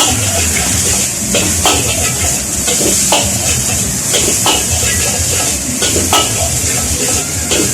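Fried rice sizzling in a hot wok, with a metal spatula scraping and clinking against the pan at irregular short intervals as it is stir-fried over a steady hiss.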